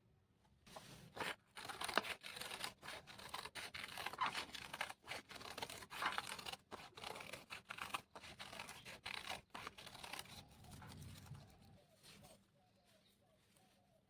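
Craft paper being cut and handled by hand: scratchy rustling and scraping with many sharp clicks, dying away after about ten seconds.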